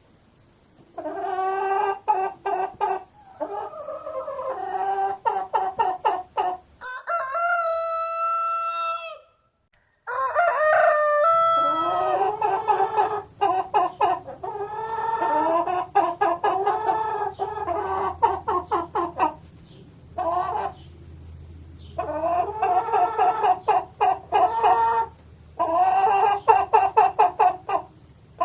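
Chickens clucking in quick, pulsing runs of calls, with a rooster crowing once about seven seconds in. The sound breaks off briefly, then further squawks and clucking follow.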